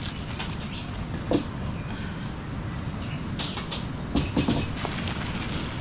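Steady low rumble of wind on the microphone, with a few sharp knocks and clinks about a second in and again around three and a half to four and a half seconds in.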